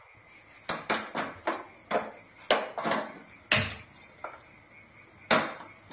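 Sharp clicks and metal knocks, about nine in all, as a steel kadai is handled on a gas stove and the burner is lit under it. The loudest knock comes about three and a half seconds in.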